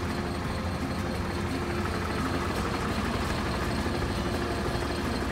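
Hino Ranger truck's diesel engine idling steadily, an even low rumble with no change in speed.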